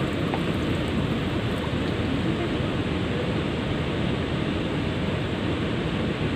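Steady rush of water pouring over a river weir.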